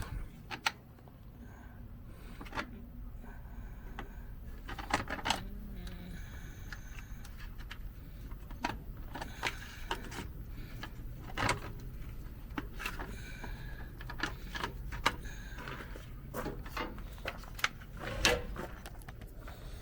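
Scattered light clicks and metal clinks of hand tools and cable hardware being handled while truck batteries are disconnected, with a few louder knocks now and then.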